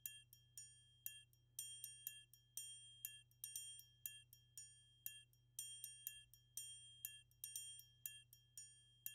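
Faint background music of short, high, bell-like tinkling notes, a few a second at uneven spacing.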